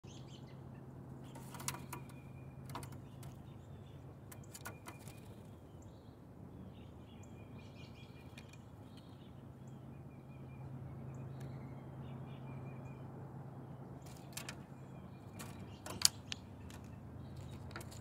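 Birds at a suet-and-seed feeder: sharp taps and knocks as they land and peck, clustered near the start and again in the last few seconds, the loudest about 16 seconds in. Faint bird chirps sit over a steady low background hum.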